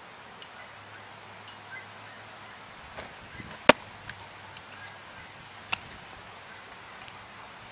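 Fastpitch softball smacking into a catcher's mitt close by: one sharp pop about halfway through, then a weaker knock about two seconds later, with a few faint ticks around them.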